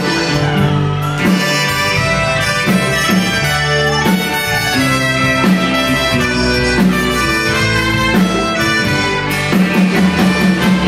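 Live Tex-Mex band playing an instrumental passage of a ranchera with a steady beat: trumpet carrying the melody over accordion and drum kit.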